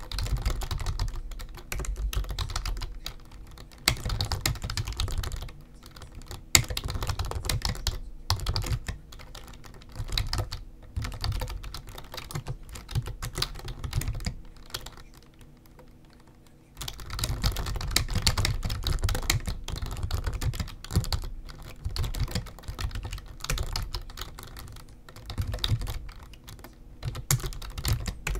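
Typing on a computer keyboard: rapid runs of key clicks in bursts, with a lull of about two seconds a little past the middle.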